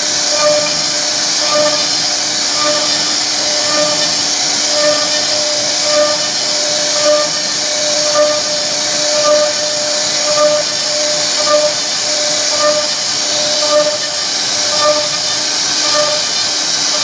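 CNC router spindle cutting wood: a steady high hiss with a steady tone underneath that swells about once a second.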